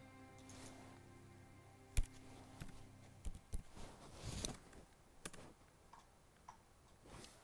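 Faint computer mouse clicks and keyboard keystrokes while a dimension value is entered. A sharp click about two seconds in is the loudest, with a quick run of keystrokes around four and a half seconds. Faint background music with steady held notes fades out after the first two seconds or so.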